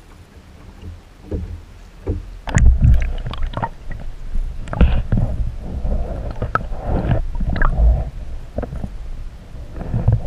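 Sea water sloshing and slapping around a kayak, with irregular knocks and low rumbling, quiet at first and louder from about two and a half seconds in.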